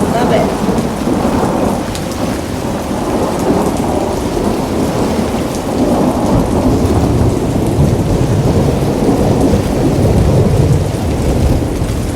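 Heavy rain pouring down, a steady dense hiss with a deep rumbling undertone.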